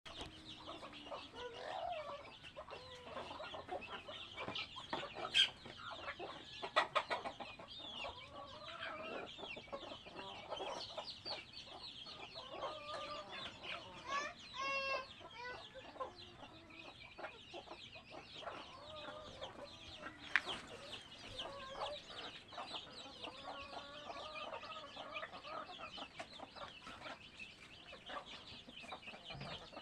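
A flock of chickens clucking and calling continuously, with many short overlapping calls, one longer drawn-out call about halfway through, and a few sharp clicks.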